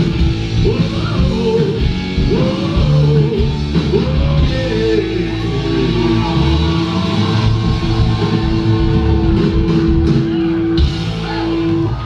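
Live punk rock band playing: electric guitars, drums and a singer's vocals, with one long held note through the middle.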